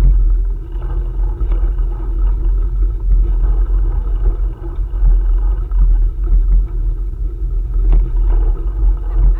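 Low, unsteady rumble of wind and motion buffeting the microphone on a moving bike, with a few faint clicks.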